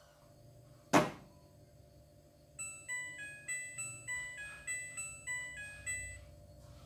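A sharp click about a second in, then the Midea front-loading washing machine's electronic tune: about a dozen short beeps of changing pitch, about three a second, marking the end of the wash cycle.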